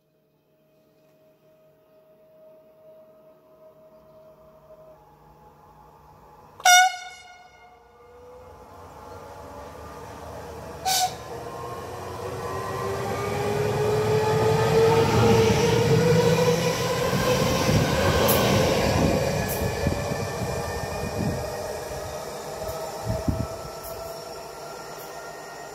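PolRegio EN62A electric multiple unit giving one short, loud horn blast about seven seconds in and a shorter second toot a few seconds later as it approaches. The rumble of wheels on rail and a rising motor whine then build, peak and fade as the unit comes through.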